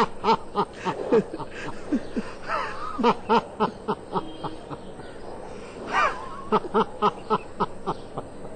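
A person laughing in three spells of quick, rhythmic ha-ha pulses, about three or four a second, with short pauses between the spells.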